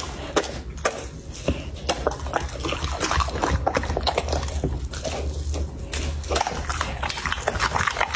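Golden retriever chewing and tearing meat from a lamb bone: a fast, irregular run of wet smacks and sharp clicks.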